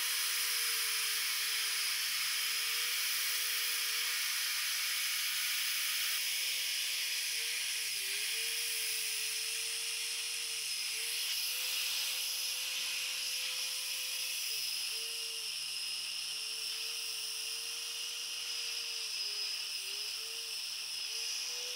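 Angle grinder with a wire cup brush running and scrubbing rust off cast iron: a steady motor whine with a scratchy hiss, the pitch dipping briefly several times as the brush is pressed into the metal.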